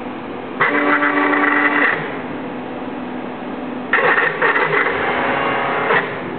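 CNC plasma table's gantry drive motors whining in two bursts, about a second and about two seconds long, as the head traverses, over a steady background hum.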